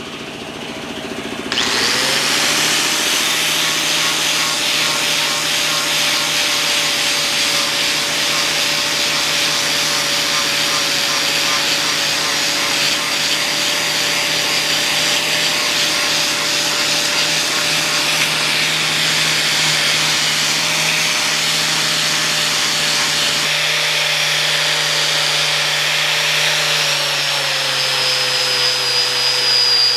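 Electric power tool motor spinning up about a second and a half in, then running steadily with a high whine that sags slightly in pitch near the end.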